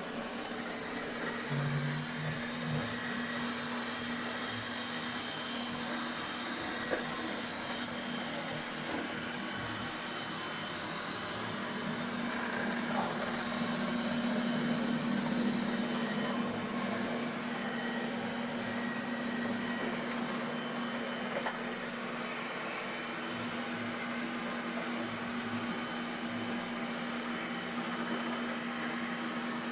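Vacuum cleaner running steadily: a constant motor hum over a whooshing air noise, swelling slightly around the middle.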